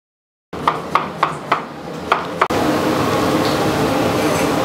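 About six sharp knocks with a short metallic ring, then, a couple of seconds in, a steady whooshing drone with a low hum: a kitchen range hood fan running over lit gas burners.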